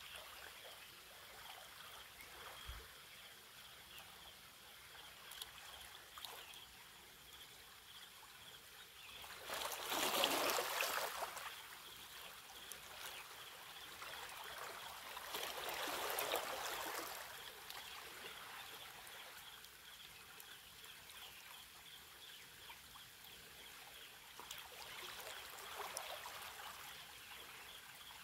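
Small waves lapping and washing against a rocky shore on calm water, swelling three times: loudest about ten seconds in, again around sixteen seconds, and more softly near the end.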